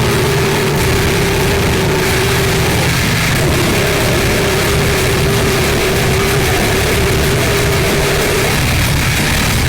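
Harsh noise music: a dense, unbroken wall of distorted noise with a steady droning tone and a low rumble, at a constant loud level.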